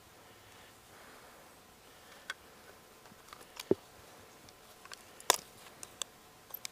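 Faint steady background with a few scattered sharp clicks and knocks, the loudest about three and a half and five seconds in.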